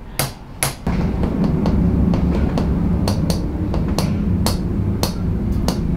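Sharp percussive taps, about two or three a second, struck during a chiropractic adjustment, over a low steady rumble that starts about a second in.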